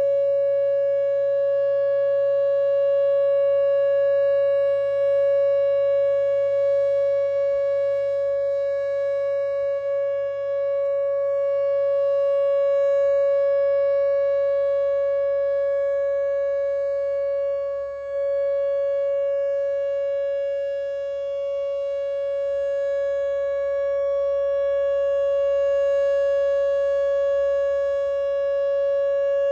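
Whelen WPS-2910 electronic outdoor warning siren sounding its steady alert signal during a routine test: one loud, unwavering tone with overtones, no rise or fall in pitch.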